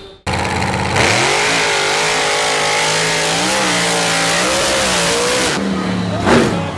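A large engine revs up about a second in and is held at high revs, wavering slightly. It is cut off abruptly near the end by a different engine sound that sweeps in pitch.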